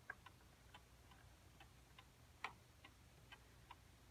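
An 1880s E. Ingraham eight-day kitchen clock ticking steadily, a little over two ticks a second, with one sharper click about two and a half seconds in.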